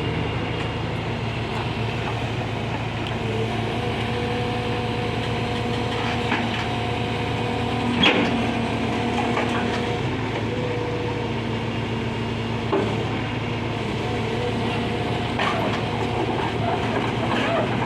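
JCB mini excavator's diesel engine running steadily, with whining tones that shift as the machine works. There is a sharp metallic clank about eight seconds in and a smaller knock near thirteen seconds.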